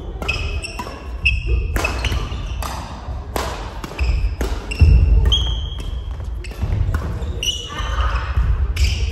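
Badminton doubles rally on a wooden gym floor: sharp racket strikes on the shuttlecock more than once a second, sneakers squeaking on the floor in short high chirps, and footfalls thudding on the boards.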